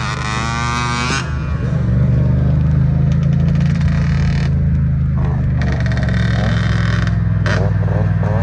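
Two-stroke dirt bike engines (a Yamaha YZ125 and a Honda CR85) running on the throttle during wheelies: a steady engine drone with the pitch rising and falling as the throttle is worked, growing louder about two seconds in.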